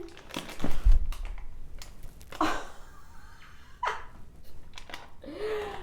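Crinkling and clicking of a plastic MRE pudding pouch being handled and stirred close to the microphone, with a heavy thump about a second in.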